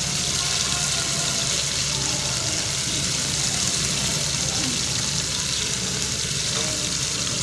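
Chicken pieces cooking in hot oil in a pan, giving a steady, even sizzle.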